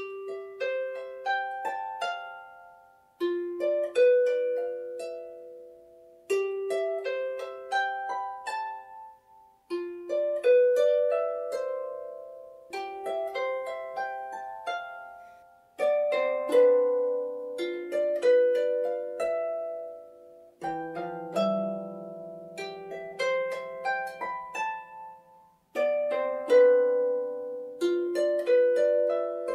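Celtic harp playing slow phrases of plucked notes that ring and fade, a new phrase beginning about every three seconds. Deeper bass notes join about two-thirds of the way through.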